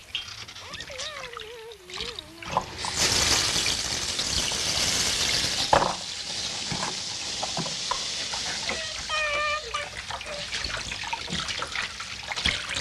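Water splashing and trickling in an enamel washbasin as a toddler is washed by hand, starting about three seconds in. A short high-pitched voice cuts in partway through.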